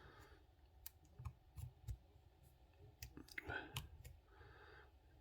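Faint, irregular small metallic clicks as a hook pick and tension wrench work the pins in the cylinder of a Viro chain-link lock. The picker says the lock has spool pins. The clicks are spread unevenly over a few seconds.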